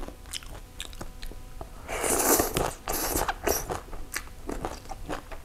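Biting and crunchy chewing of a mouthful of green mango salad with salted cà xỉu. It is loudest about two seconds in as the mouthful goes in, then follows with a run of short crisp crunches.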